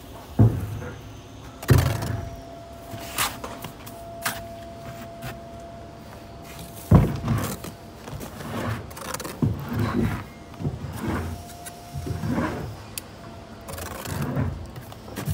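Steel brick trowel working mortar onto concrete blocks: three sharp knocks, then a run of short, repeated scraping strokes as mortar is spread along the top of the course. A faint steady hum sits underneath in parts.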